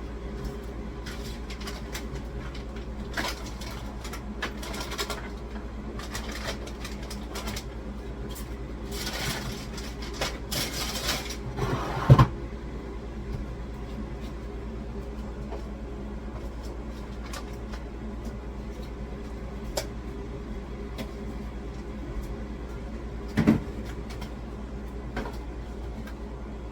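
Containers and groceries being moved around and set down while a fridge is reorganised: scattered clunks, clicks and rustling over a steady low hum, with a loud knock about twelve seconds in and another near the end.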